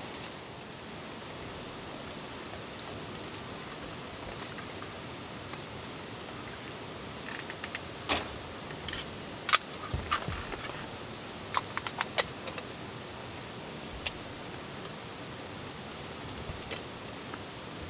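Scattered sharp clicks and clinks of small hard objects being handled, about a dozen in all, bunched together in the middle with a few more later. They sit over a steady background hiss.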